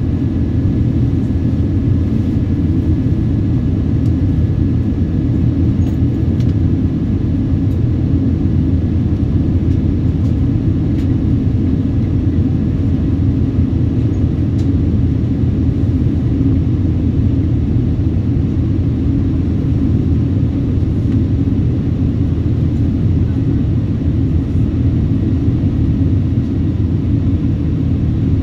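Steady in-flight cabin noise of a Boeing 777-200ER airliner: an even, low rumble of engines and airflow with no change in level.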